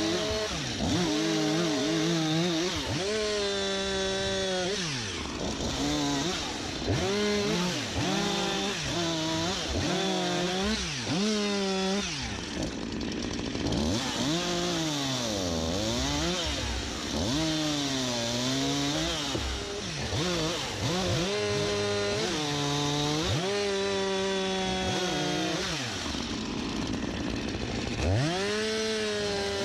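STIHL MS251C two-stroke chainsaw running and cutting dead elm, its engine pitch rising and falling over and over as the throttle opens and the chain bogs down in the wood.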